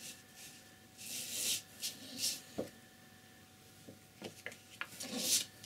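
Flat paintbrush with tempera paint brushing on paper and on the palette: several soft swishing strokes, with a few small taps in between.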